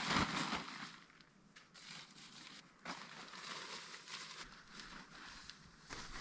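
Nylon tent fabric rustling and crinkling as it is shaken out and folded by hand, louder in the first second and then softer, with one sharp click about three seconds in.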